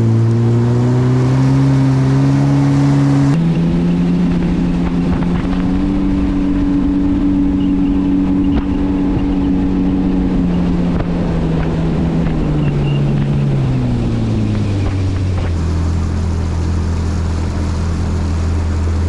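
Engine running steadily at speed, with abrupt changes where the footage is cut. The pitch drops away about three-quarters of the way through and settles into a lower, steady drone.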